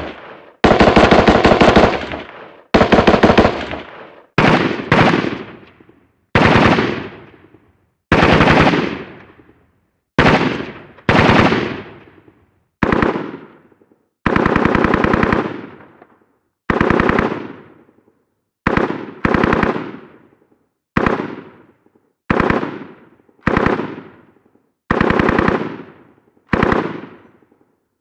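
Machine-gun fire sound effect: a series of short bursts of rapid automatic shots, about one burst every one to two seconds, each ending in a fading echo, with silent gaps between.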